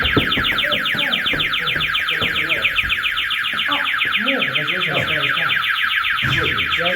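Building intruder alarm going off: a loud, continuous electronic siren of rapidly repeating pitch sweeps, the alarm the explorers tripped.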